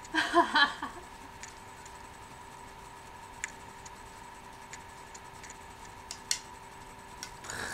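A short vocal sound at the start, then a few faint scattered clicks and small handling noises, over a faint steady electronic whine.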